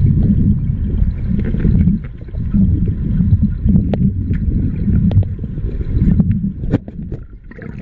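Muffled, irregular underwater rumble and sloshing, as heard from a camera submerged in a swimming pool, with scattered small clicks and ticks.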